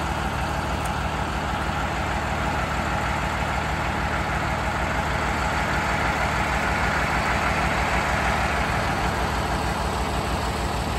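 Large truck's engine idling steadily, with an even, low throb.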